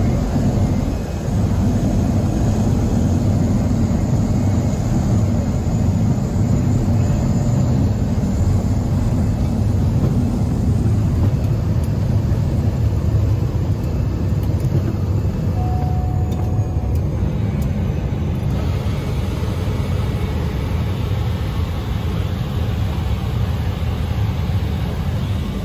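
Cabin noise of a Cessna 208B Grand Caravan landing on a dirt airstrip: a loud, steady low rumble from its single turboprop engine and the airframe. A short beep sounds about 16 seconds in, and the noise eases slightly a couple of seconds later.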